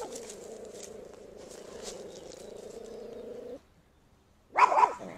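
A dog growls in a steady low drone for about three and a half seconds, goes quiet, then barks loudly a couple of times near the end.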